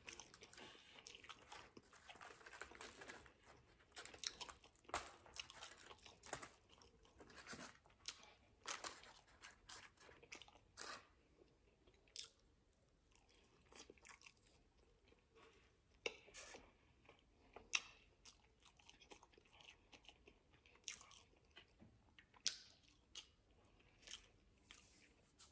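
Faint, close-miked chewing and biting into Wingstop fried chicken wings, with soft irregular crunches and mouth clicks.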